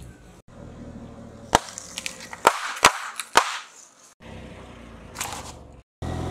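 Objects cracking and popping as a car tyre rolls over them: one sharp crack, then a quick run of three or four more about a second later, over a low rumble of the car and its tyres on asphalt.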